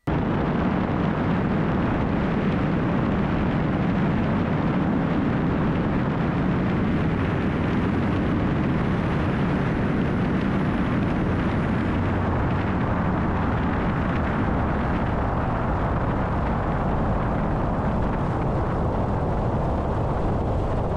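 A light aircraft's piston engine and propeller running steadily under heavy rushing airflow, during an approach with the flaps out.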